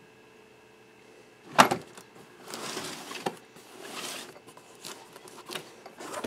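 Cardboard product box handled on a table: a sharp knock about one and a half seconds in, then a couple of seconds of the box rubbing and sliding as it is turned over, with a few light taps.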